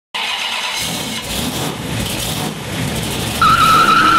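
Loud car noise with skidding tyres, starting suddenly; a high, wavering squeal joins about three and a half seconds in.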